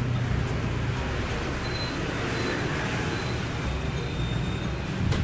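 Steady low rumble and hiss of background noise, with a few faint clicks and a slightly louder knock near the end.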